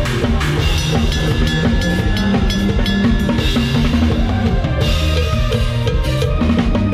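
Drum kit played with kick drum and snare in a lam sing (Isan folk-pop) groove, over the band's pitched instruments.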